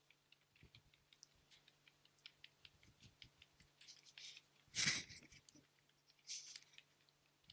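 Faint, rapid light taps of sneakered feet on a hard floor as two people run in place. A louder short breathy sound comes about five seconds in, and a smaller one about a second and a half later.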